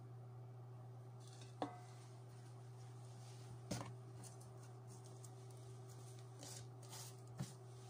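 A steady low hum, with three sharp clicks or knocks spread through it and a few fainter ones near the end, like small hard objects being handled at a desk.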